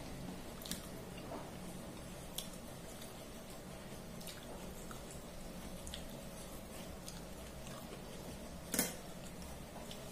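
Rice being mixed with fish curry by hand on a steel plate and eaten: faint wet squishes and scattered small clicks, with one louder click about three-quarters of the way through.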